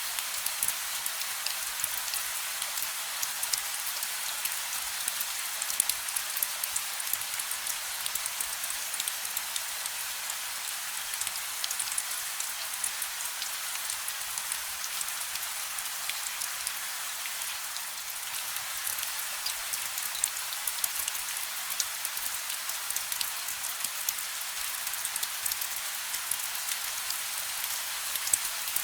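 Steady gentle rain with no thunder: an even hiss of rainfall, with many small drops pattering and ticking on a surface.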